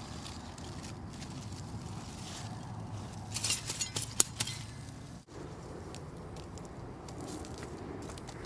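Large cucumber or squash leaves rustling as a hand pushes through the vines, with a burst of crisp rustles and sharp clicks about three to four seconds in, over a steady low background noise.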